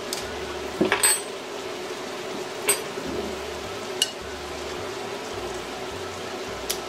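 A metal spoon clinking sharply against a glass jar of spaghetti sauce several times, over the steady sizzle of sausage and tomato sauce simmering in a skillet.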